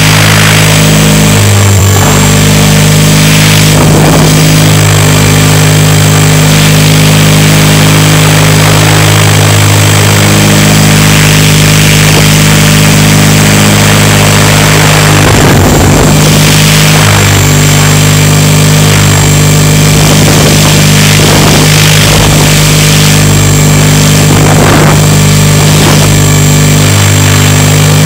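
Radio-controlled helicopter's motor and rotor heard through its own onboard camera: a loud, steady drone with a hiss over it, shifting slightly in pitch about two seconds in and again after about seventeen seconds.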